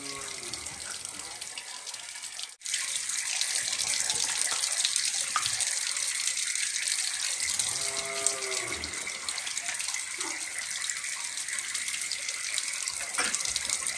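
Water running steadily and splashing as a fish is rinsed, with a brief break about two and a half seconds in, after which it is louder.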